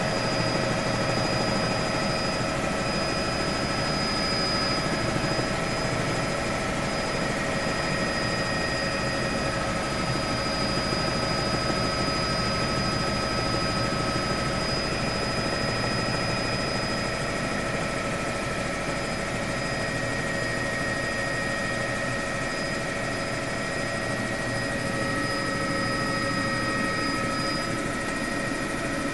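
Helicopter running steadily: a constant rumble of rotor and engine noise with a high, steady turbine whine over it.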